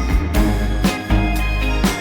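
Background music: a funk/soul track with a steady drum beat and a sustained bass line.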